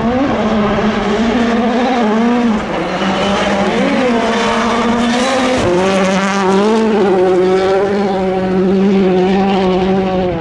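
A World Rally Car's turbocharged four-cylinder engine running flat out at high revs. The pitch dips and recovers several times as the driver lifts and changes gear, with a sharp change in note a little past halfway.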